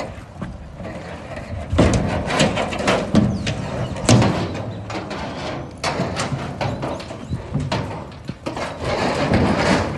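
Two ridden horses moving and turning in a sand arena: hooves thudding and scuffing in the sand, with irregular sharp knocks, loudest about two and four seconds in.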